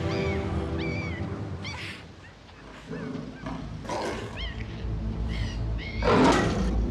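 Zoo animal sound effects: short, high, bending cries called again and again, then a loud, harsh, growl-like burst about six seconds in.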